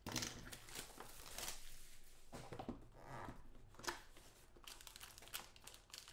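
Trading-card packs and cards being handled: faint, irregular crinkling and rustling of pack wrappers and cards.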